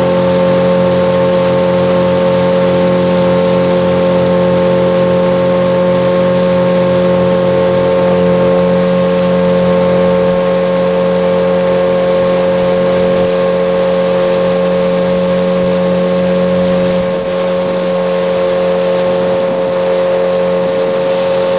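Small boat's outboard motor running steadily at an unchanging pitch, with a brief small dip in level about seventeen seconds in.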